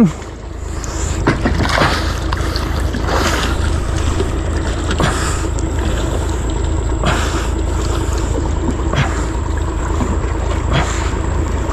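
A boat's engine running steadily, a continuous low rumble with a steady hum, with short sounds scattered over it.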